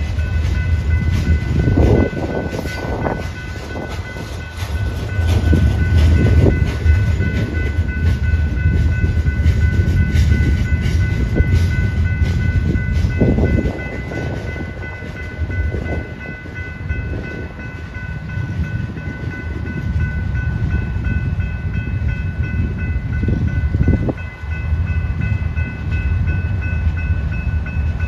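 Freight train covered hoppers and tank cars rolling past at close range: a steady rumble of steel wheels on rail that swells and eases as the cars go by, with repeated knocks from the wheels and a steady high-pitched whine on top.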